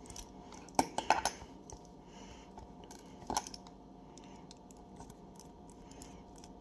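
A few small metallic clicks and clinks as tiny beadlock ring screws and a screwdriver are handled while the screws are taken out of a stamped steel RC beadlock wheel. There is a short cluster about a second in and a single click past three seconds.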